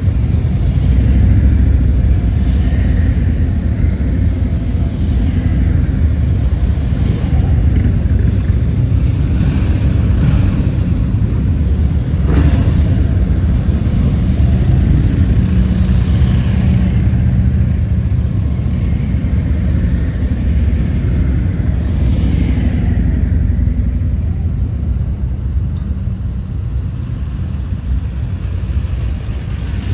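Many police motorcycles riding slowly past one after another, their engines running together in a steady low rumble. The rumble eases a little near the end.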